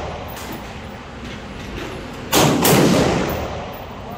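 A single rifle shot from an AR-15 firing 5.56 ammunition, about two seconds in, echoing and dying away over a second or so in the indoor range.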